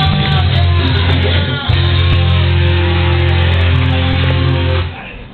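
Loud rock music with electric guitar and held chords over a heavy bass line, cutting off abruptly near the end.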